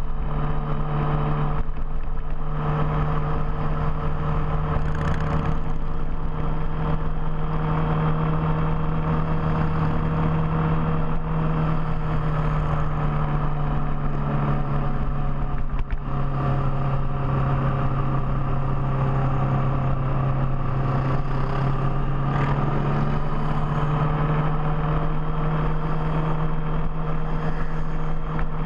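Big touring motorcycle's engine running steadily under way, a continuous low drone that holds nearly level throughout, with a brief dip about sixteen seconds in.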